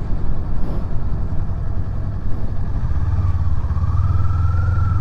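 Kawasaki Ninja 400 parallel-twin engine running at low revs, settling into a steady hum about three seconds in.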